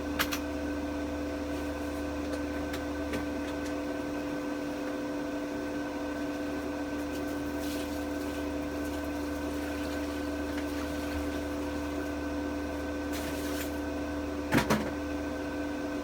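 Welder humming steadily while switched on, with a sharp click just after the start and two quick knocks close together near the end.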